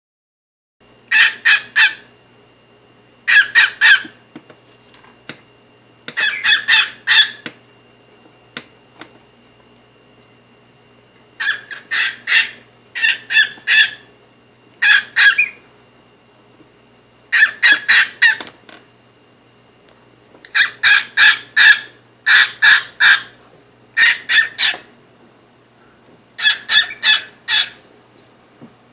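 Cockatiel calling from inside a cardboard box: repeated groups of three to five quick, sharp, loud chirps, with pauses of a second or more between groups.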